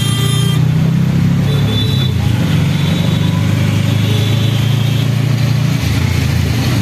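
Steady low engine and road rumble heard from inside a car driving through city traffic, with a few faint short high tones partway through.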